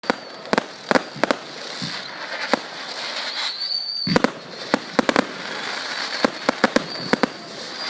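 Fireworks going off: a quick string of sharp bangs and crackles over a steady hiss, with a high whistle that rises just before a cluster of bangs about four seconds in.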